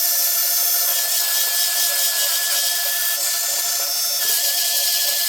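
Oraimo cordless spin scrubber running, a steady thin motor whine over the scratchy rubbing of its spinning brush head scrubbing a sink.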